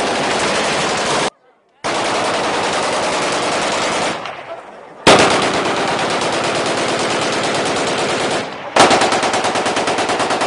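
Celebratory automatic gunfire from assault rifles and machine guns, in long, dense, overlapping bursts. It comes as edited clips: a half-second of silence about a second and a half in, a fade near four seconds, and fresh bursts starting sharply at about five and nine seconds.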